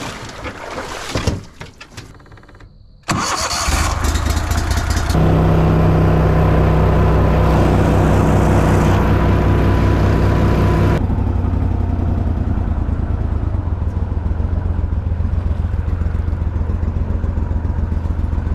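A jon boat's small gas-engine motor running under way. After a few seconds of rustling and knocks, the engine comes in about three seconds in. It runs harder with a strong steady hum, then settles to a lower, even pitch about eleven seconds in.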